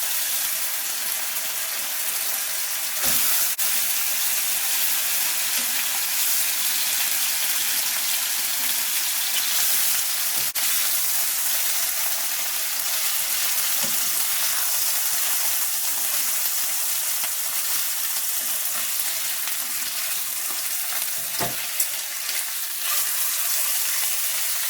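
Pork chops sizzling steadily in hot olive oil in a non-stick pan, with a few light knocks of the pan or utensil.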